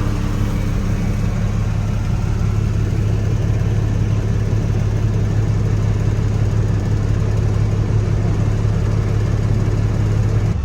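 An engine running steadily at one speed, a low, even hum with no change in pitch.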